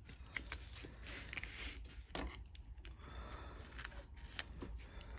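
Washi tape being handled and laid on a diamond painting canvas: faint, irregular small clicks, rustles and scrapes.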